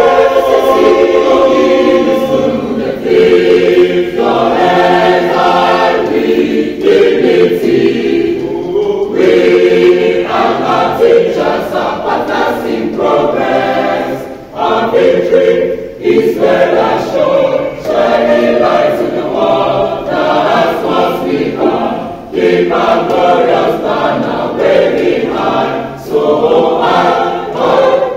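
A choir singing an anthem in rehearsal, phrase by phrase with brief breaks between lines.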